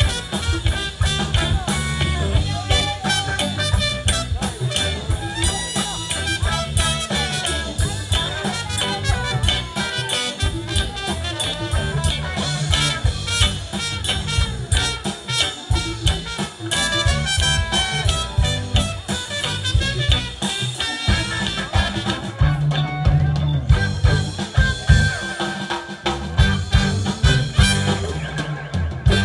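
Live rock band playing: electric guitars, bass, keyboard and drum kit, with a horn part.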